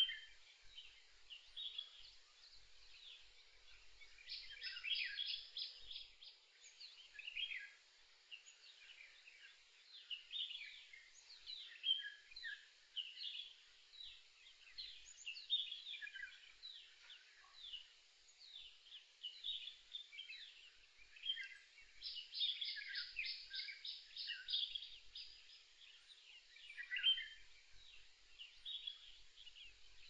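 Several songbirds chirping and singing, with quick trills of evenly spaced notes now and then, the loudest a few seconds in and again past the middle.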